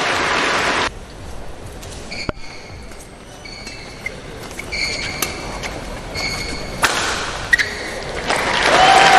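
A badminton rally in an indoor hall: sharp cracks of rackets striking the shuttlecock, spaced a second or more apart, with shoes squeaking on the court between them. The crowd is noisy for the first second, then breaks into loud cheering and applause over the last second or so.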